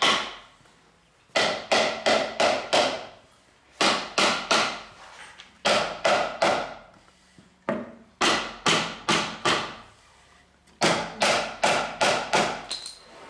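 Hammer blows knocking a wooden lattice head rail down onto its slats, a joint being driven home a little at a time: sharp wooden knocks in quick runs of four to seven strikes with short pauses between runs.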